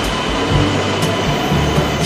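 Background music over the running noise of an E2 series Shinkansen train moving alongside the platform.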